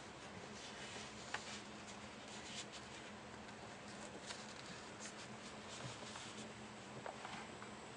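Faint steady background hiss with a few soft, irregularly spaced clicks.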